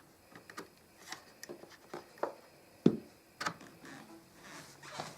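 Small plastic clicks and knocks as a USB hub's cable plug is handled and pushed into a computer's USB port, with one sharper knock about three seconds in.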